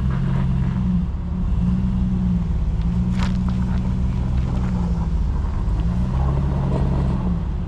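Jeep engine working at low speed up a rocky trail, the throttle rising and falling several times as it crawls over rock. A single sharp knock about three seconds in.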